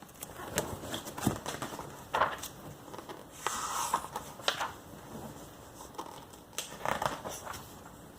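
Pages of a magazine being turned and handled: paper rustling with a string of small crackles and taps, and a longer swish about three and a half seconds in.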